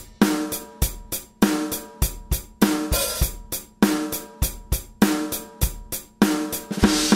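Background music with a steady drum beat, hits coming evenly a little under twice a second with cymbals ringing over them.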